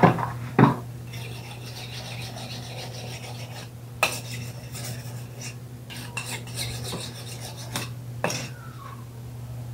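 Kitchen knife scraping and knocking against a cutting board while raw chicken is cut, with dishes clattering; a few sharp knocks stand out, one about four seconds in and two near the end, over a steady low hum.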